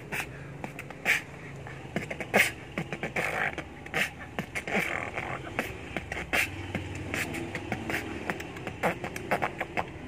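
A boy beatboxing: quick mouth-made kick, snare and click sounds with short hisses, in a loose, uneven beat.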